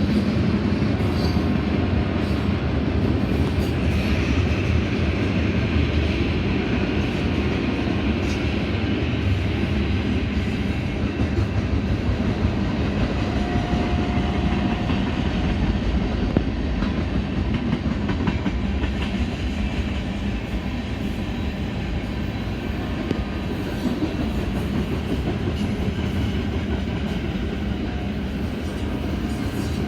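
BNSF freight train's cars rolling past, a steady loud rumble of steel wheels on rail with clickety-clack over the rail joints and a faint wheel squeal now and then.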